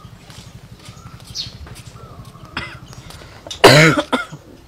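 A single loud, harsh cough, short and broken, about three and a half seconds in, over faint bird chirps.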